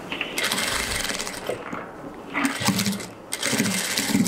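Industrial flatbed sewing machine stitching a seam in three short runs of rapid needle clatter, each stopping briefly before the next.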